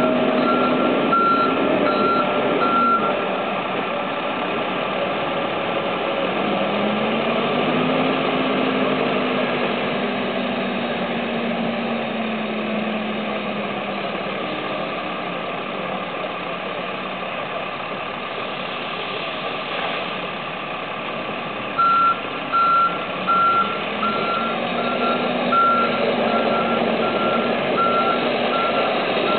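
Diesel engines of a Case 580 ST backhoe loader and a Case 330B articulated dumper running at work, the engine note rising and falling under load. A reversing alarm beeps at an even pace for the first few seconds and again through the last third.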